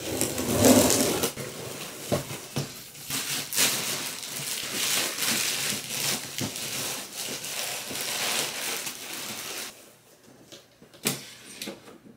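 Cardboard and plastic packaging rustling and crinkling as a boxed pet dryer is unpacked, with many scattered clicks and knocks. It drops much quieter about ten seconds in, leaving a few sharp clicks.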